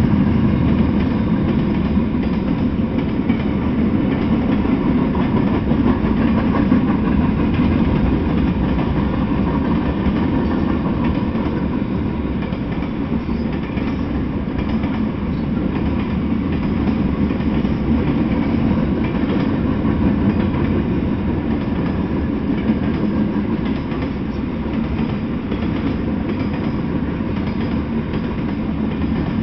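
A freight train's cars rolling past steadily, steel wheels running on the rails. The cars are graffiti-covered hopper cars, a centerbeam flatcar loaded with wrapped lumber, and tank cars. The sound is a continuous rumble, heaviest in the low range, with no horn or braking.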